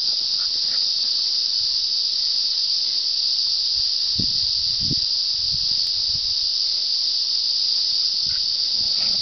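Chorus of many cicadas: a loud, steady, high-pitched buzzing drone that holds unbroken.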